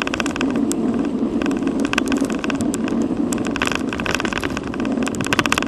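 Road and wind noise picked up by a camera mounted on a moving bicycle, a steady rumbling rush with dense, irregular rattling clicks throughout as the bike rolls over the pavement.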